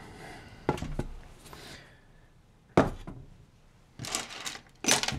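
Handmade test leads with plastic banana plugs being handled and set down on a desk: several separate sharp clacks and rattles, about a second in, near the middle, and in a cluster near the end.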